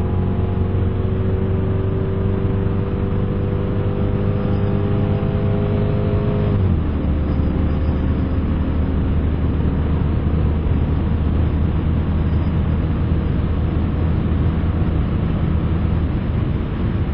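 Car engine accelerating hard, its pitch climbing steadily for about six seconds, then dropping sharply at an upshift about six and a half seconds in and pulling on in the next gear.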